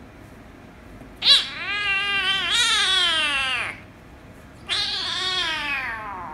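Kitten giving two long, loud, drawn-out angry meows, each falling in pitch, while the other kitten grabs at it. The first starts sharply about a second in, and the second begins past the middle and is still going at the end.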